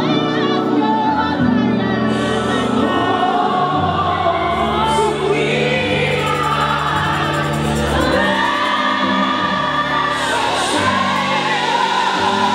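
Live gospel worship music: sung vocals over held keyboard and bass chords, with a crowd of worshippers singing along.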